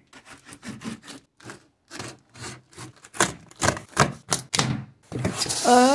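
Hands opening a sealed cardboard box: a run of irregular taps, clicks and rubs on the cardboard and packing tape, then a longer tearing rasp about five seconds in.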